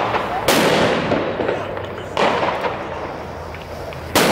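Three loud firework bangs, a second and a half to two seconds apart: one about half a second in, one about two seconds in and one near the end. Each trails off in a long echo.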